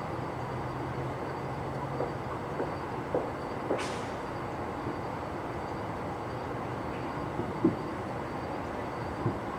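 A handful of short, sharp pops of fireworks going off at a distance, irregularly spaced, the loudest about eight seconds in, over a steady background rumble.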